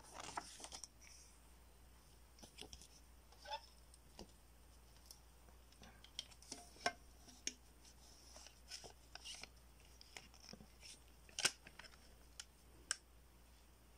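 Hands handling a CD booklet and plastic jewel case: faint paper rustling and scattered light plastic clicks and taps, with a few sharper clicks in the second half.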